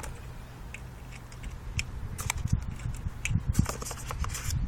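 Small metallic clicks and rubbing from hands handling a Dan Wesson 4.5 mm BB revolver, loading its six-shot cylinder. The clicks come scattered at first and get busier about halfway through, over a steady low rumble.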